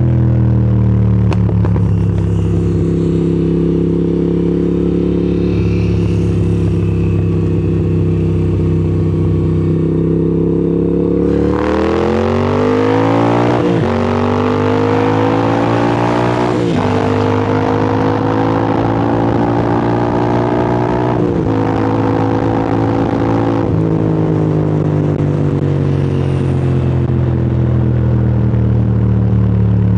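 Moto Guzzi V7's air-cooled V-twin running at a steady pace, then accelerating from about eleven seconds in, its note climbing with a break at each of three gear changes, before settling back to an even cruise near the end.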